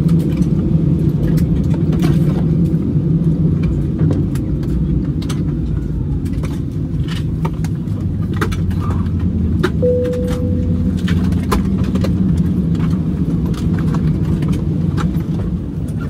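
Steady low rumble of a moving vehicle, with frequent small rattles and clicks and one brief beep about ten seconds in.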